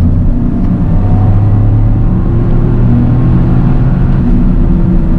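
Toyota GR Yaris three-cylinder engine running under way, its note climbing slowly in pitch over the first three seconds as the car gathers speed, then easing.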